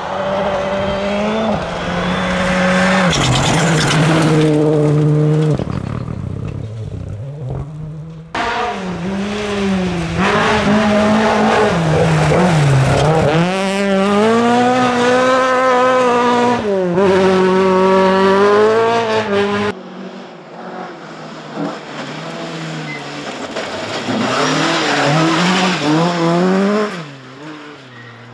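Rally cars on a gravel stage heard in three separate passes: a modern Ford Fiesta rally car, then two Mk2 Ford Escorts. In each pass the engine revs rise and fall through gear changes and lifts, with the tyres skidding on the gravel.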